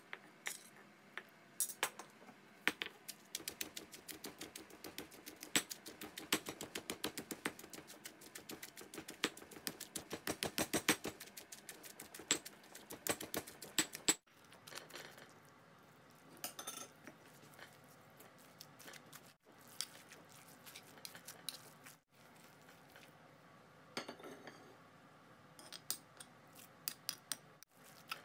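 Stone pestle pounding Thai red curry paste ingredients in a granite mortar: rapid, repeated sharp knocks of stone on stone for about the first half, then sparser knocks. Near the end a spoon scrapes the paste around the mortar.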